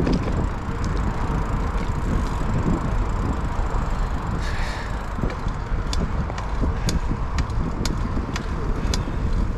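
Bicycle rolling along a paved trail: a steady low rumble of riding noise, with light ticks about twice a second in the second half.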